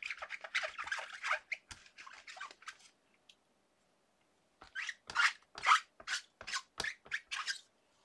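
Short scratchy rubbing strokes from hands working stamps and paper on a stamping platform. There is a dense run of them over the first three seconds, then, after a pause, about eight separate strokes at roughly two to three a second.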